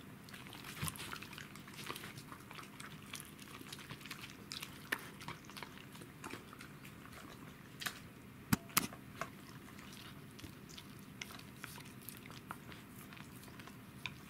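Pembroke Welsh corgi crunching and chewing a piece of deer bone: a steady run of sharp cracks and clicks, with two louder snaps close together about eight and a half seconds in.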